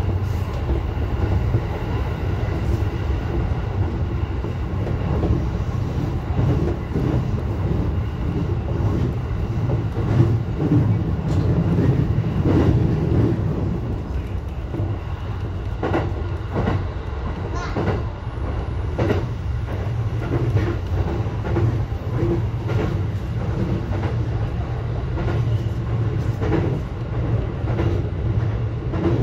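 Running noise of a JR East E233-series electric train, heard from its front cab: a steady rumble of wheels on rail, with irregular sharp clacks as the wheels pass over rail joints.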